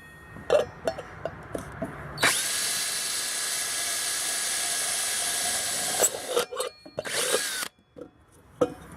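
Electric drill with a 3/16-inch bit boring a drainage hole through the bottom of a tea kettle: a steady run of about four seconds starting a couple of seconds in, then a shorter burst. Handling knocks and clicks come before and between the runs.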